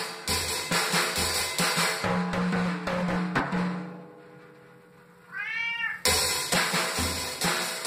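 Drum kit being played, with cymbal and drum strokes that fade out about halfway through. A cat meows once, a single call that rises and falls, and the drumming starts again right after.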